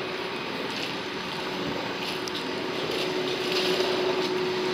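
Street traffic noise with a steady hum from a subway train on the elevated bridge, growing louder near the end as the train comes closer.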